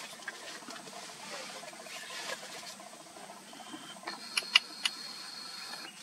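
Forest ambience with a low background hiss; about four seconds in, a thin steady high-pitched insect buzz starts and holds for almost two seconds, and three sharp clicks sound during it.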